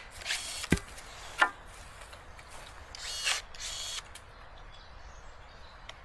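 Tool work on wood: a few short rasping bursts and a sharp knock or two, with quieter stretches between.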